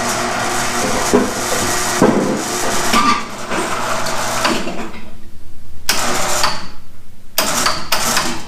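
Small electric drive motor of a homemade plow mechanism running, with the hum and knocks of the mechanism. About halfway through it drops to a lower, fluttering hum broken by three short bursts of noise.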